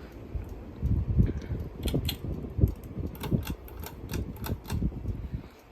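Wobbling Hampton Bay Cameron II Plus ceiling fan rattling, with irregular clicks and low knocks as it rocks: a badly wobbling fan.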